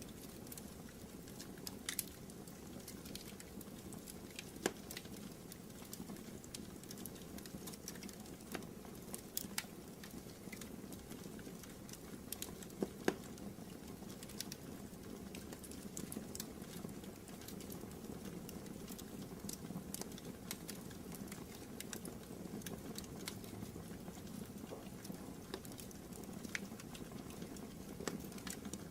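Fire burning in a fireplace: a steady low rush with irregular crackles and pops, the loudest about 5 and 13 seconds in.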